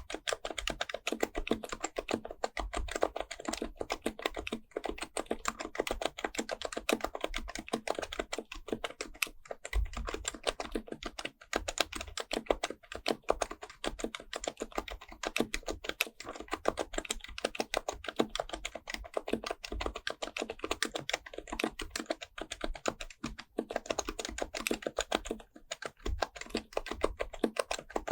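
Steady fast typing on an HHKB Professional Type-S keyboard: its Topre switches give a run of soft, muted keystrokes, many a second, with a few brief pauses.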